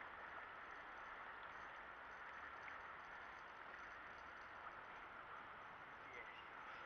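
Near silence: a faint, steady outdoor background hiss.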